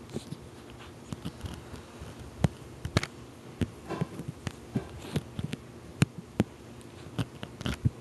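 Kitten batting and biting at a plastic wiffle ball: irregular taps, knocks and clicks at uneven intervals, over a faint steady hum.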